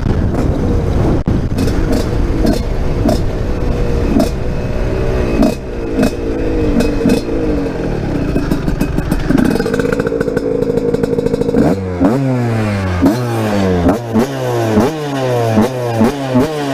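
Husqvarna SMS 125 two-stroke supermoto engine running at high revs under way, with wind rush over the microphone. About twelve seconds in, the wind drops away and the engine is revved in a quick run of throttle blips, each rising in pitch and then falling off.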